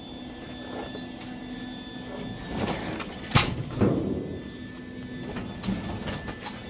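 Workshop handling noise: a few knocks and clatters, the sharpest about halfway through, over a steady hum.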